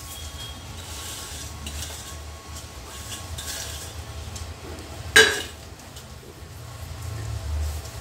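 Crisp fried onions being crumbled by hand into a metal pot of marinated chicken: soft rustling over a low steady hum. About five seconds in comes one sharp metallic clink of dishware.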